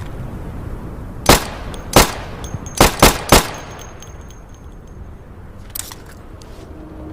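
Walther PPK pistol firing five shots: two single shots about two-thirds of a second apart, then three quick shots. A few faint clicks follow near the end.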